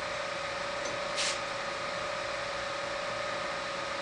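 Steady background hum with a faint, even whine, and a brief soft scrape a little over a second in.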